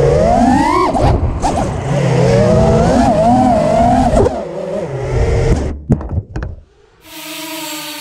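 Racing quadcopter's brushless motors and propellers whining, the pitch rising and falling quickly with the throttle. The whine fades out about five and a half seconds in, a few sharp clicks follow, and about seven seconds in a steady tone with hiss begins.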